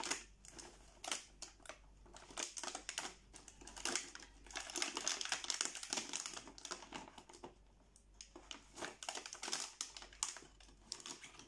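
Stiff clear plastic blister packaging crackling and crinkling, with small plastic toy kitchen pieces clicking against it as they are pulled out, in irregular bursts.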